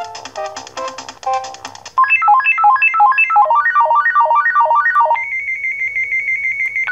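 Philips SE 455 phone playing ringtones one after another. First the end of a chiming melody in chords, then from about two seconds in a fast run of single pure beeps stepping up and down, and from about five seconds in a rapid trilling beep on one high pitch.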